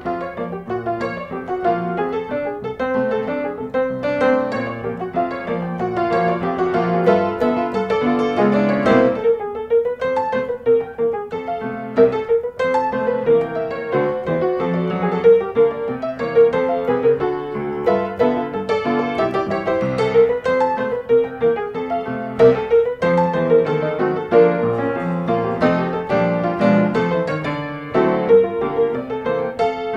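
Background piano music: a gentle melody played over chords.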